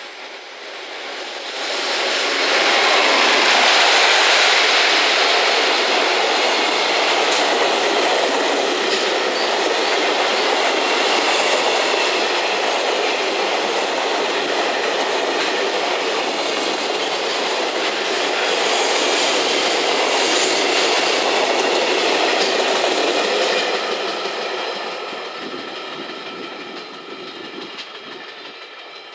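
Container freight train passing at speed, hauled by an EF210 electric locomotive with an unpowered EF66 locomotive and sixteen container wagons behind: loud, steady wheel-on-rail noise. It swells up within the first two seconds as the locomotives go by, holds steady while the wagons pass, then fades away over the last five seconds.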